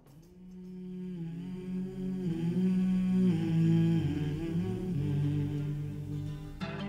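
Background music: soft wordless vocal humming in harmony, with notes held and moving in steps. Acoustic guitar strumming comes in near the end.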